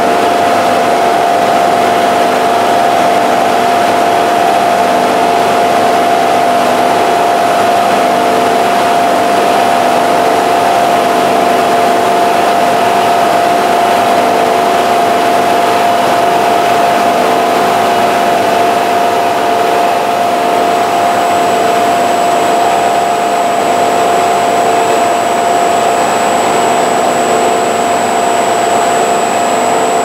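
Screw pumps in a paper-mill coating kitchen running steadily: a constant machine drone with a steady mid-pitched whine. A thin, high whistle joins in about two-thirds of the way through.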